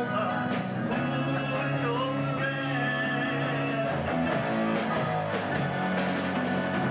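Guitar-led rock music played by a full band, steady and moderately loud.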